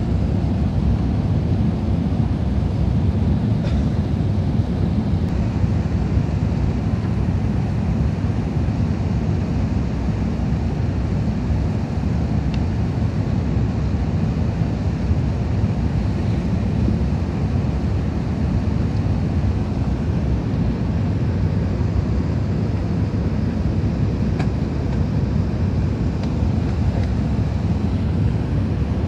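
Airbus A380 cabin noise during the descent to land: a steady low drone of the engines and the airflow past the fuselage, heard from inside at a window seat.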